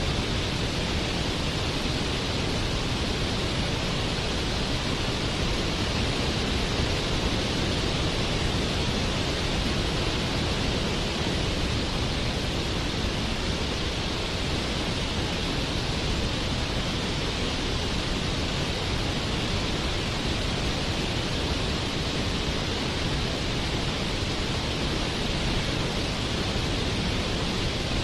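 Waterfall rushing: a steady, even wash of water noise that never changes.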